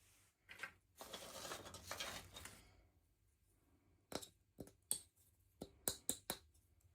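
Packaging being unwrapped: a crinkling, tearing rustle for about two seconds, then about eight sharp clicks of small pieces being handled.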